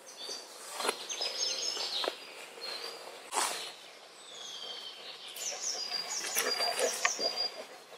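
Small songbirds chirping in short, high notes, over rustling and crunching steps through leafy undergrowth that bunch up near the end.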